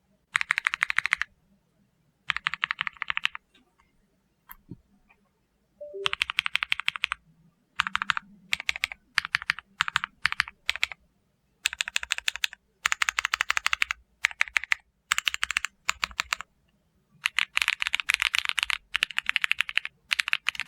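Mechanical keyboard with stock MZ Studio Z1 switches being typed on in quick runs of keystrokes, each run a second or two long and separated by short pauses.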